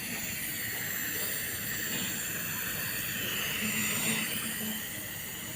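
Nebulizer running with a steady hiss.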